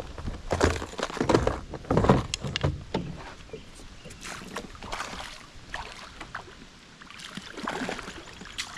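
Irregular splashing and knocking around a kayak on the water, loudest in the first three seconds and quieter after.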